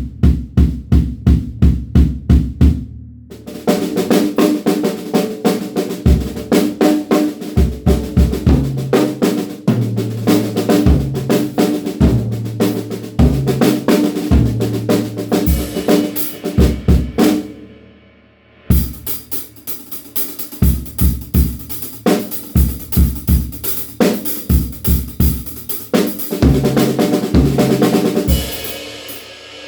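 DW Frequent Flyer drum kit played hard: a quick run of bass drum strokes opens, then grooves and fills across snare, toms and cymbals. There is a brief break about two-thirds of the way through before the playing resumes.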